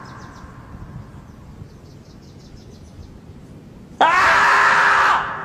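A single loud, drawn-out scream of about a second, starting suddenly about four seconds in with a quick rise in pitch: the 'screaming marmot' meme yell, a human scream dubbed over a standing marmot.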